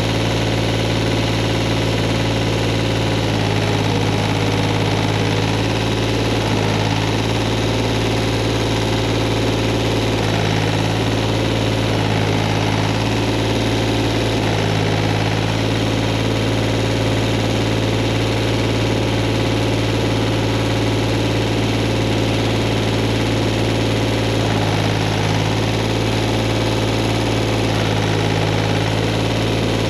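Tractor engine running steadily, its note shifting slightly every few seconds as the load changes.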